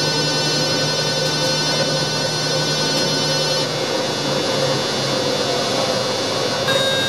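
Electric train's traction equipment heard inside the driver's cab while running: a steady hum with a high whine of many fine tones, which changes pitch about three and a half seconds in. A brief tone sounds near the end.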